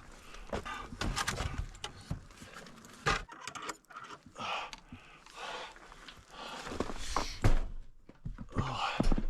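A cabin door being worked open and shut: latch and hardware rattling, with scattered knocks and thumps and some rustling, in a small wooden room.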